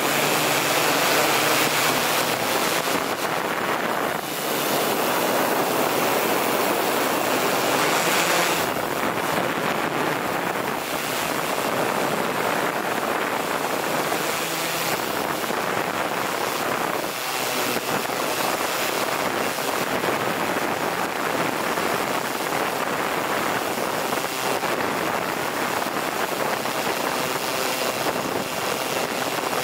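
Steady rushing noise of rotor wash and wind buffeting the microphone of a camera carried aloft on a multirotor drone in flight.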